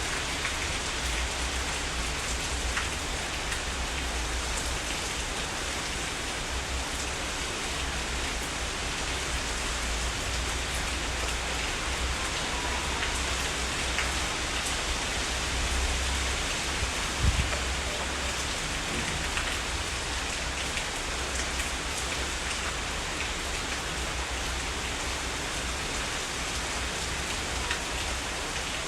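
Heavy rain falling steadily, with scattered individual drops ticking through it and a low rumble underneath. A single short low thump sounds about two-thirds of the way through.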